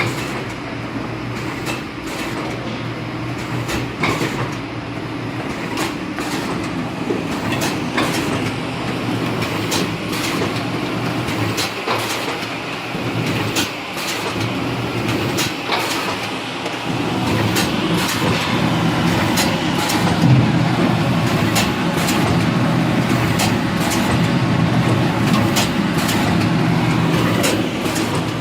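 Automatic vertical-type shrink-wrapping machine running, a steady mechanical hum with frequent sharp clicks and clacks throughout.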